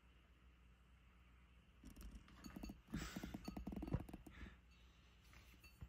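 Cat eating the last of its dry kibble from its bowl: a faint run of quick small crunching and chewing sounds, starting about two seconds in and lasting a couple of seconds.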